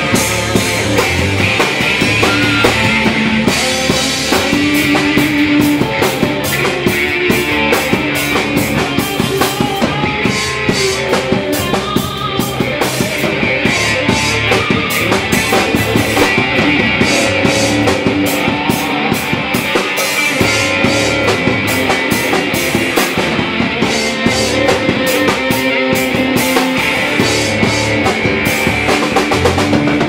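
Live rock band playing loud: electric guitars, bass and a drum kit, with fast, steady cymbal hits over the guitars.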